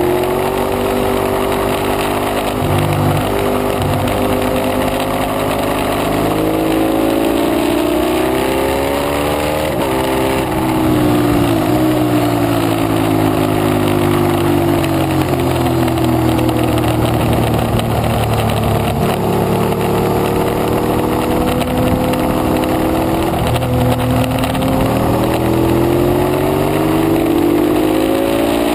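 Ducati 848 Evo L-twin engine at track speed, revs climbing and falling through gear changes and corner entries, with a sharp drop about ten seconds in. Steady wind rush runs underneath.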